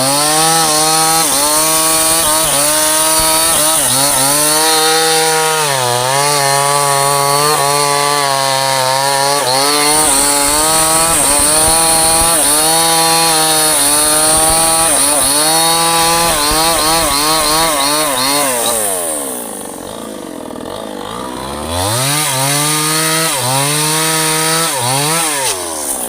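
Two-stroke chainsaw running at high revs, cutting through a teak log, its pitch wavering under load. The revs dip briefly about six seconds in, fall to idle about two-thirds of the way through, then rise again for a second cut before easing off near the end.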